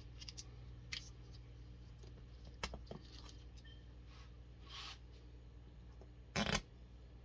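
Small clicks and rustles of plastic RC truck wheel and tire parts being handled during assembly, with a short louder clatter about six and a half seconds in, over a steady low hum.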